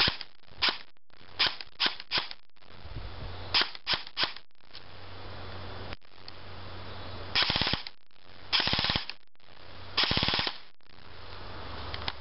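Homemade airsoft gun built from spare parts firing: about eight single shots in the first half, then three short full-auto bursts of about half a second each.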